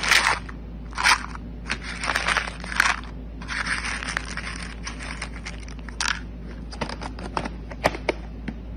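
Dry dog kibble rattling and crunching in a plastic bin as a plastic cup is scooped through it and tipped back, in a series of short pours. Near the end, a few single pieces click against the plastic cup.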